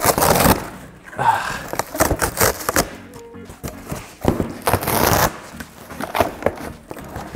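Cardboard being torn open and handled: rough tearing and scraping bursts as a box flap is ripped and an inner carton is slid out of a larger box, with light knocks. Background music plays underneath.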